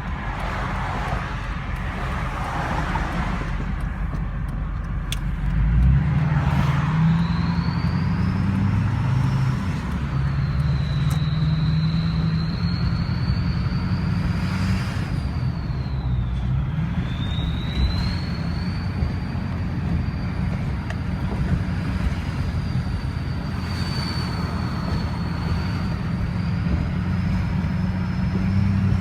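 Vehicle engine running with a turbocharger whistle over its low drone. The thin, high whine comes in about seven seconds in and rises and falls gently in pitch.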